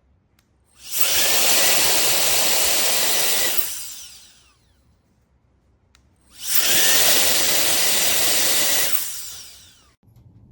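Cordless electric air duster's high-speed fan motor blowing in two bursts of about three seconds each. Each burst spins up quickly with a brief rising whine and winds down as the motor is released.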